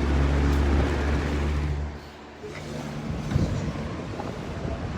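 Holmes 20-inch box fan running on medium: a steady motor hum with rushing air, which drops away suddenly about two seconds in, leaving an uneven rumble with a few faint ticks.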